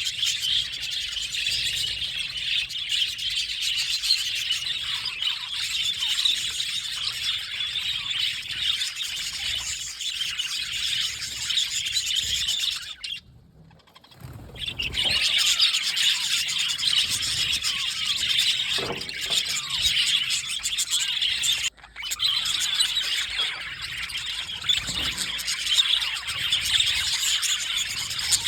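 Two male budgerigars chirping and warbling in a dense, continuous high chatter. It breaks off for about a second and a half around halfway, and again very briefly later.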